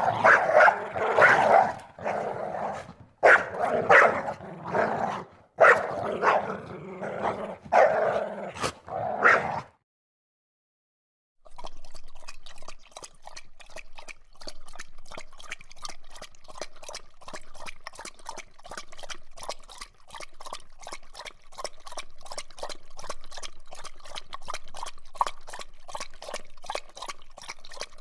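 A dog barking and growling in loud, irregular bursts. About ten seconds in it cuts off, and after a short silence comes a steady, even run of short wet clicks, several a second.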